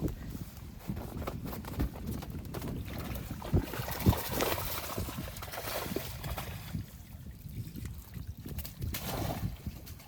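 Strong wind buffeting the microphone in gusts, as a low rumble with hissing surges, mixed with scattered clicks and knocks.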